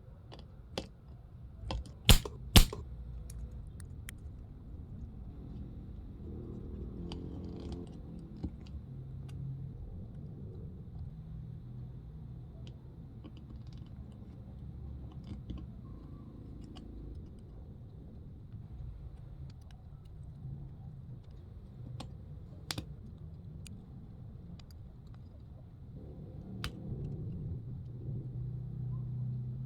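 Scattered clicks and taps, with two sharp, loud clicks about two seconds in, over a low hum that swells now and then.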